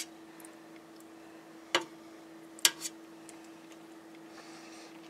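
A metal fork clinking against a stainless steel pot while tossing pasta salad: four sharp clinks, irregularly spaced, the last two close together.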